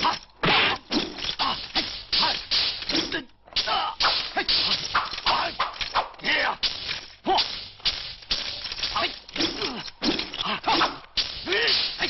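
Kung-fu film fight sound effects: a rapid run of punch and kick whacks and thuds, several a second, mixed with whooshing swishes of moving limbs.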